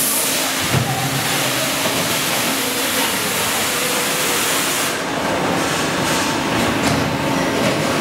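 Factory-floor machinery noise with a steady low hum. A loud hiss sits over it for the first five seconds and cuts off suddenly.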